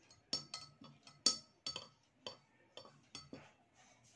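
Steel spoon stirring salt and pepper into a glass of sweet lime juice, knocking against the glass about ten times in quick, uneven succession, with a short ring after each clink. The clinking stops about three and a half seconds in.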